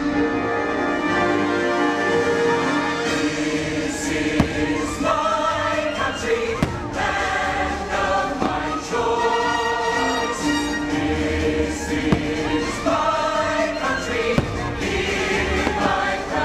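A choir singing over an orchestra: the fireworks show's patriotic soundtrack. Several sharp firework bangs break through it, the loudest about four seconds in.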